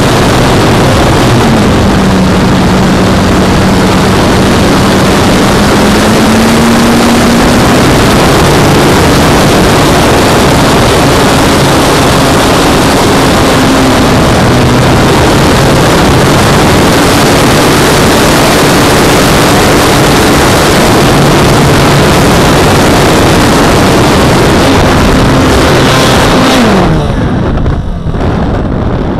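Heavy wind rush on the onboard microphone of an Extreme Flight Edge 540T 48" RC aerobatic plane in flight, with the motor and propeller tone rising and falling as the throttle changes. Near the end the tone drops, and the wind rush briefly eases as the throttle is pulled back.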